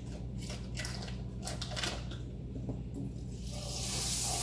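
A butter wrapper crinkling in quick, irregular crackles as it is pulled open. About three and a half seconds in, the butter goes into a hot cast-iron skillet with a little olive oil and starts to sizzle, a hiss that swells and then holds.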